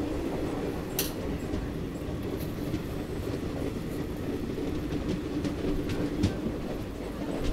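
Indian Railways express train running on the track: a steady rumble from the coaches with a light clickety-clack of wheels over rail joints, and one sharp click about a second in.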